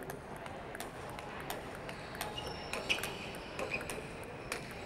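Table-tennis ball clicking off rubber bats and the table in an irregular warm-up rally, sharp clicks a fraction of a second to a second apart, over a steady hall murmur.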